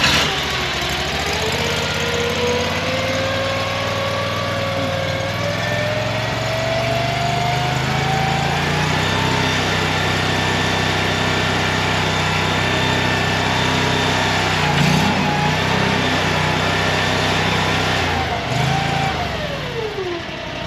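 Mini skid steer's engine running steadily after starting, with a hydraulic whine climbing slowly in pitch as the skid-steer stump grinder's cutting wheel spins up. Near the end the whine falls away in pitch and the running winds down.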